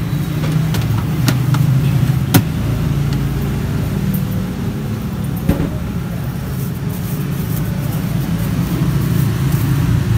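Steady low rumble of an engine running close by, with a few short sharp clicks, one about two seconds in and another after five seconds.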